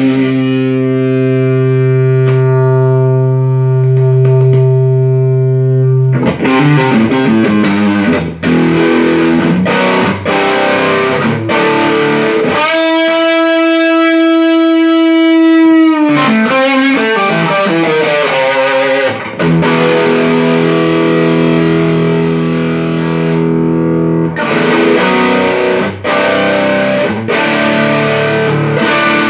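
Electric guitar played through a Fender Deluxe 112 Plus transistor combo amp, tested after servicing. It opens on a chord held for about six seconds, moves into busier runs of notes, holds a single note for about three seconds around the middle with a bend at its ends, then plays on.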